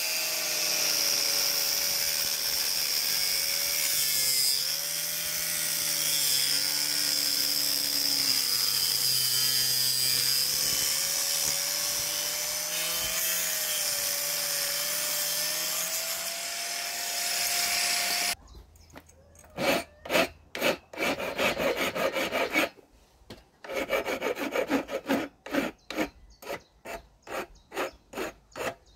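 Angle grinder with a cutting disc running through copper pipe, its whine dipping in pitch as it loads up, for about eighteen seconds before it cuts off. Then a hand file rasps back and forth across the cut end of the copper pipe in quick strokes.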